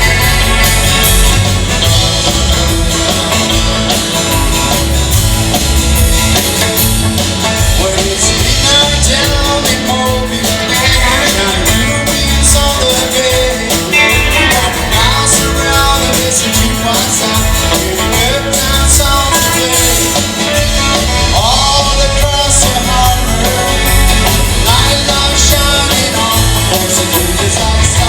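Continuous band music: a country-rock song with guitar, playing loud without a break.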